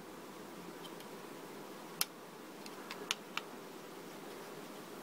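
Plastic LEGO pieces clicking and tapping as they are handled and pressed onto the model: one sharp click about two seconds in, then a quick run of four lighter clicks.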